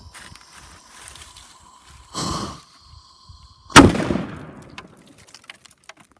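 A banger firecracker frozen in ice inside a tin can goes off in a single loud, sharp bang a little under four seconds in, ringing out for about a second. It is preceded by the faint hiss of the burning fuse, with a brief louder hiss about two seconds in, and followed by scattered small ticks of falling ice.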